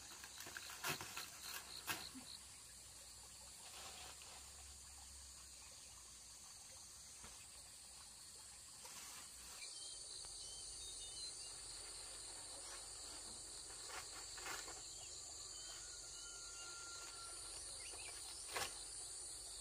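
Insects chirping steadily in a high, continuous drone, with a few faint knocks and rustles in the first two seconds.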